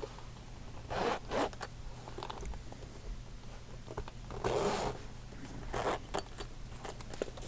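Zipper on a carrying case being pulled in a few short strokes, with light handling scrapes between them.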